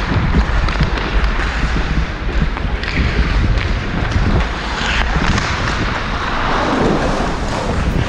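Ice hockey skates scraping and carving across the rink during play, under heavy wind rumble on a body-worn action camera's microphone, with a few sharp clacks.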